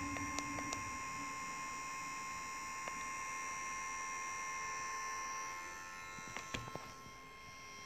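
YIHUA 8858-I handheld hot air gun running, its fan motor giving a steady hum with high steady tones, the newly fitted heating element working. The sound softens near the end, with a few light handling clicks.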